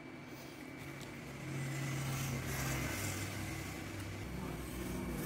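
A motor vehicle running, a low engine hum that grows louder about a second and a half in and shifts slightly in pitch.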